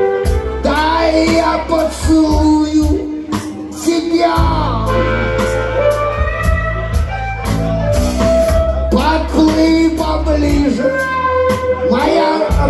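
Live band playing: a man singing over electric guitar, bass guitar and percussion, with harmonica.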